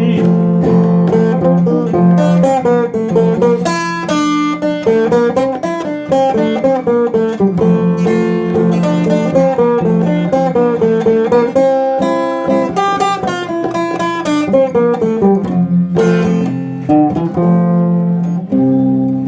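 Instrumental passage of the song: a plucked guitar melody moving up and down over a steady accompaniment.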